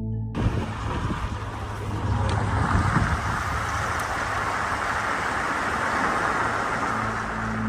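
A steady rushing noise cuts in abruptly about a third of a second in, with a low rumble under it during the first few seconds.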